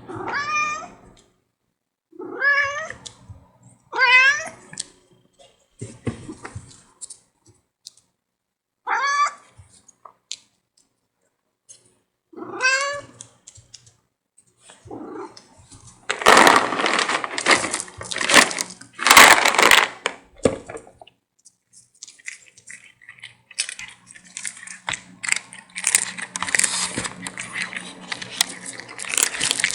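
A kitten meowing five times, short calls of under a second each. Then come several loud noisy bursts and a long stretch of rustling with small clicks as the kitten and puppy scuffle.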